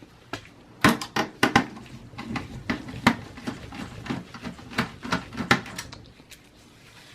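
Parts of a desktop computer being handled during disassembly: an irregular run of sharp clicks and knocks for about five seconds, the loudest about a second in.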